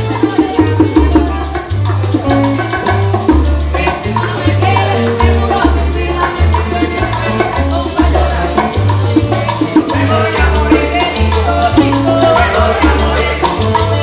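Cuban son septet playing live: acoustic guitars strumming over a stepping upright-bass line, maracas shaken in a quick steady rhythm, and a woman and a man singing.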